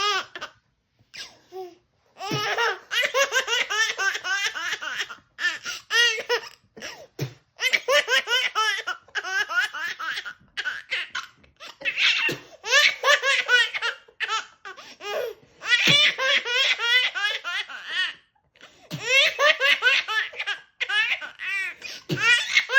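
A baby laughing in repeated bouts of quick, high-pitched laughs, each run lasting a couple of seconds, with short breaks for breath between them.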